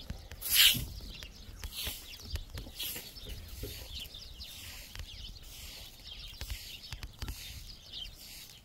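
Small birds perched in a brush pile chirping repeatedly, with short sharp calls throughout and the loudest just after the start.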